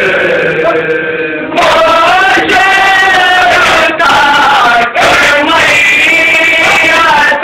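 Men's voices chanting a nauha, a Shia mourning lament, in long sung phrases with short breaks between them; softer for about the first second and a half.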